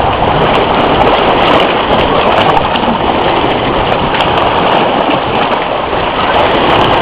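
Steady, loud rush of moving water swirling and splashing around a swimmer.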